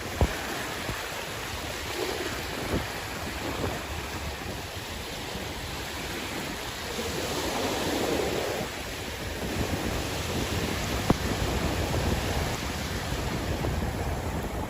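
Sea waves washing onto the shore, with one wave swelling louder about halfway through, and wind buffeting the microphone. A couple of brief sharp clicks stand out, one near the start and one about three-quarters of the way in.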